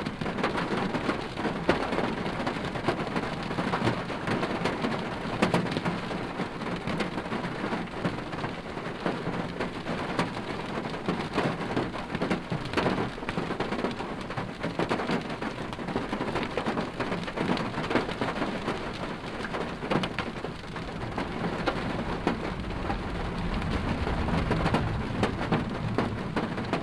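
Rain falling on a car's roof and windows, heard from inside the car: a steady dense patter of many small drop ticks.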